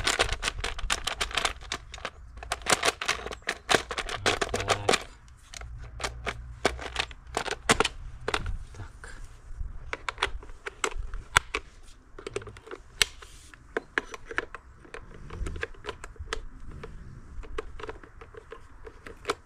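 Irregular clicks and light knocks of plastic and metal as a new Stihl MS 362 chainsaw's controls and covers are worked by hand, thick for about the first five seconds and sparser after.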